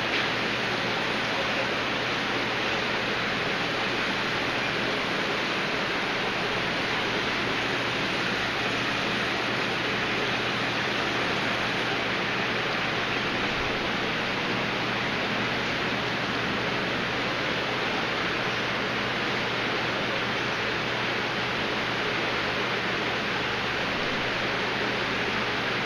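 Steady rushing of water from aquarium filtration in a fish room full of tanks, with a low steady hum underneath.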